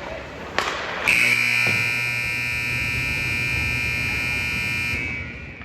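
Scoreboard buzzer sounding one long, loud blast of about four seconds that starts abruptly and fades out, with a sharp knock just before it.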